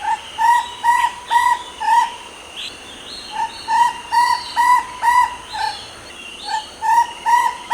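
Chestnut-backed owlet calling: three runs of short notes that rise and fall in pitch, about two a second, six or seven notes to a run, with a pause of a second or so between runs.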